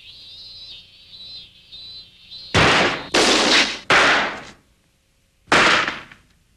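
Gunshot sound effects in an animated cartoon: three sharp shots in quick succession about two and a half seconds in, then a fourth about a second and a half later.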